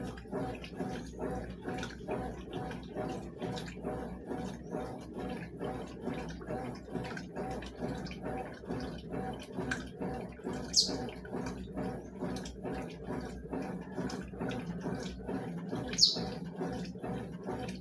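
Consul CWS 12 washing machine agitating sheets in the rinse water: continuous churning and sloshing with a quick, even rhythm. Two brief high chirps cut through, about eleven and sixteen seconds in.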